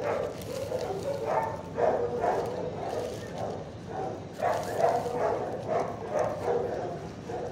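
Dogs barking in a shelter's kennels: a dense, unbroken run of short barks.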